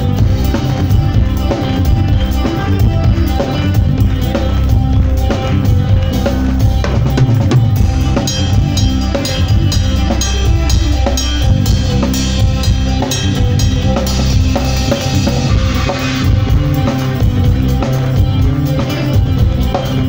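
Live fusion rock band playing, the drum kit to the fore with kick, snare and cymbals over a steady beat, bass and electric guitar underneath; the cymbals are brightest in the middle stretch.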